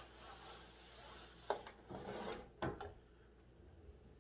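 Noble Collection wand box being slid out of its cardboard sleeve: soft papery rubbing, with a light tap about a second and a half in and a louder knock of the box against the table a second later.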